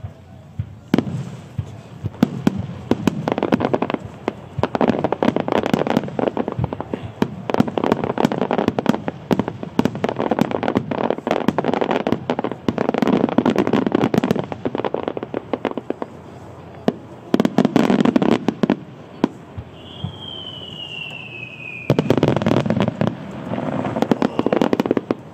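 Extra-large starmine from Beniya Aoki fireworks: a rapid-fire barrage of shells launching and bursting in dense overlapping bangs and crackle. It pauses briefly about two-thirds of the way through, and a falling whistle sounds before a final volley.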